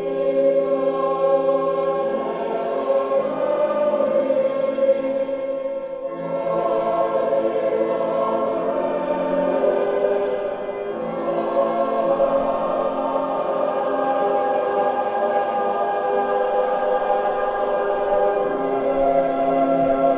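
A small choir singing a slow chant, the voices holding long notes that change every few seconds.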